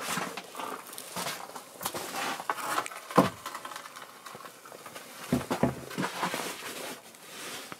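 Wooden boards being handled and shifted, with rustling and scraping and a run of knocks as the planks bump together; the sharpest knock comes about three seconds in, with another cluster a couple of seconds later.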